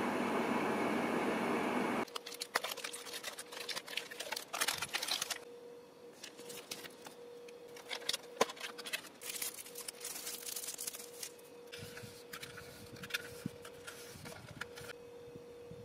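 A microwave oven running with a steady whirring hum, which stops abruptly about two seconds in. Then clear plastic film on a takeaway ramen bowl crinkles and rustles on and off as hands handle and peel it, over a faint steady hum.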